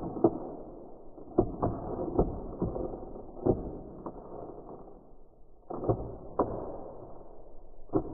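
Perforated tear strip being pulled open along a paper mailer envelope. The paper rips and crackles in a run of short tears, with a brief lull a little past halfway.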